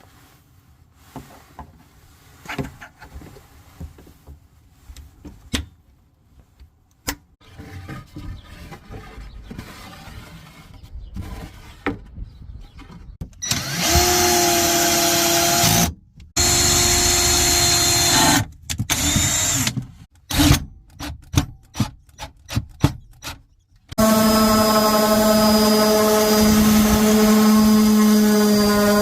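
Handheld power drill running in bursts of a few seconds, with scattered knocks and rattles of handling before and between them; the last and longest run is a steady whine. The drill is driving in the fixings of a support bracket that runs from the wall to a countertop.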